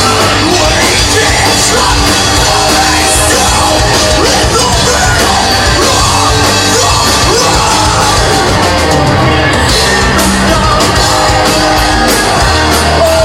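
A rock band playing live at full volume, with yelled and sung vocals over heavy guitars and drums. Loud and dense, as heard from within the audience.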